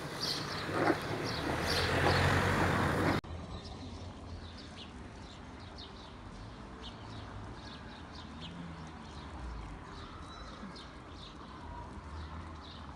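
Small birds chirping in short high calls over a faint steady background hum. In the first three seconds a louder, rough noise covers them and cuts off abruptly.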